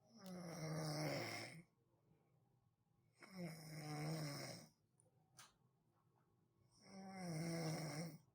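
A person snoring: three long, buzzing snores, each about a second and a half, coming roughly every three and a half seconds with quiet gaps between.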